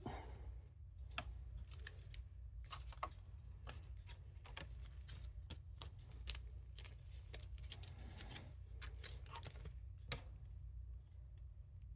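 Scattered clicks, crinkles and rustles of cardboard and plastic packaging and trading cards being handled, over a steady low hum.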